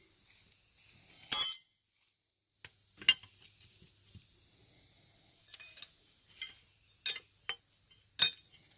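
Steel hand tools, wrenches and sockets, clinking and clanking while being rummaged through, with a string of sharp metallic knocks; the loudest comes about a second and a half in.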